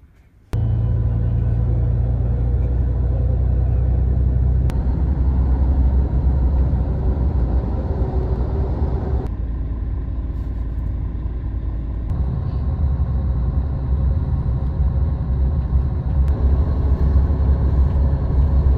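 Bus engine and road noise: a steady low rumble that starts suddenly about half a second in, its tone changing abruptly at several cuts.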